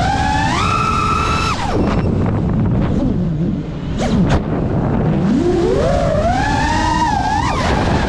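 FPV quadcopter's motors whining, the pitch rising and falling with the throttle. It climbs and holds high about a second in, drops away near two seconds as the drone flips over, then climbs again from about five seconds. Under it runs a steady rush of wind and prop wash.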